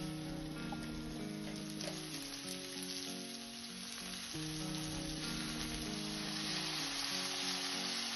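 Burger patties sizzling in their fat on a grill pan, a steady hiss that gets louder about halfway through. Background music with a repeating melody plays over it.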